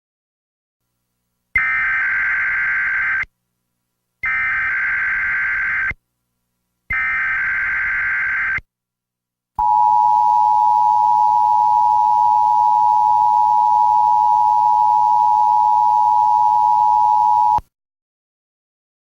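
Emergency Alert System tones: three short, buzzy data bursts of the SAME digital header, each under two seconds with brief gaps between them. Then comes the steady two-tone attention signal, held for about eight seconds before it cuts off suddenly. Together they open a National Weather Service emergency alert, here a severe thunderstorm warning.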